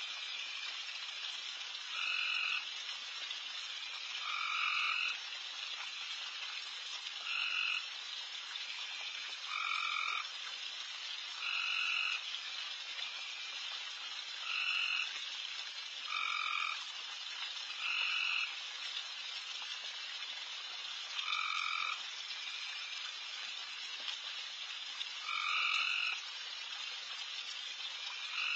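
Loud frog chorus around a pond: a dense, steady din of calling, with one louder trilled call of about half a second to a second coming back every two to three seconds.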